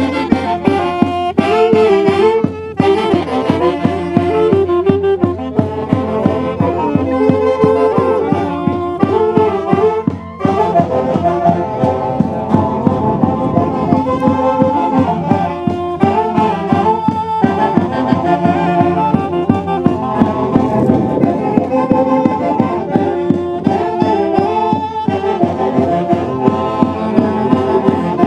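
Saxophone band with a bass drum playing a lively tune: several saxophones in unison over a steady drum beat.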